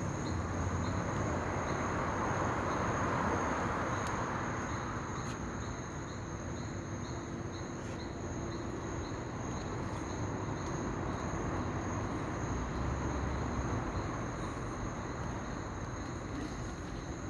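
Insects calling: a steady high-pitched trill with a separate chirp repeating about twice a second, over an even wash of background noise.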